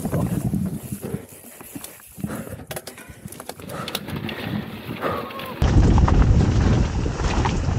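Mountain bike riding a rough trail: knocks and rattles from the bike over bumps, with tyre and wind noise. A little over two-thirds of the way in, the sound jumps abruptly to a louder, deeper rumble of riding.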